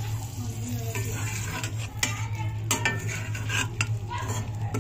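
A flat steel spatula scrapes and clinks against a black iron kadhai and a plate while scooping up fried fish pieces. The sharp knocks come in a busy run from about a second in until near the end, over a steady low hum.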